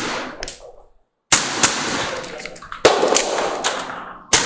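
Kizuna Works BSK43 airsoft pistol firing a string of about six single shots, in uneven pairs and singles with short pauses between, each a sharp crack.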